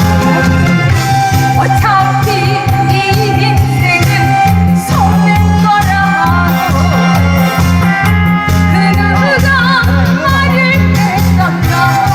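Korean trot song over an accompaniment track with a steady bass beat, a woman singing with heavy vibrato over it.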